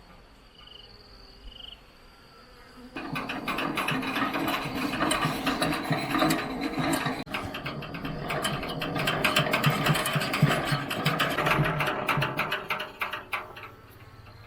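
Honeybees buzzing loudly close by, starting abruptly about three seconds in and fading near the end.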